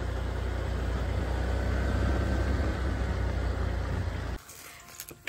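Motorbike engine running with a steady low rumble as it rides, then shutting off abruptly about four seconds in, followed by a couple of light clicks.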